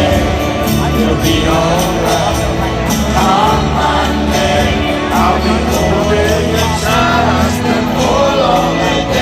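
Live band music heard from the audience: a band playing a ballad, with a man singing the melody over it.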